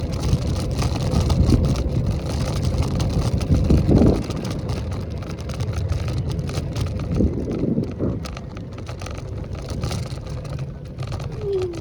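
Wind buffeting the microphone over a low rumble while riding an electric scooter, with scattered clicks and knocks throughout and a few short falling squeaks near the end.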